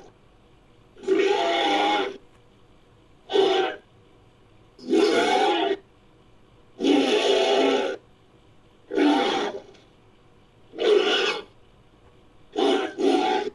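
Designed creature calls for a fictitious feathered oviraptorid dinosaur, built from oviraptor sound effects: a series of about eight separate calls, each half a second to a second long, with short silences between them and the last two coming close together.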